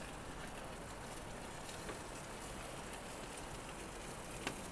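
Steak sizzling in a hot cast-iron pan inside a gas pizza oven, mixed with the hiss of the burner flame. It is a steady faint hiss with a few small pops of spattering fat, about two seconds in and again near the end.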